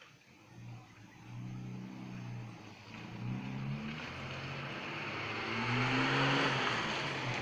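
A motor vehicle engine out of sight, growing louder over several seconds as it draws near, its pitch shifting in steps with a rising hiss.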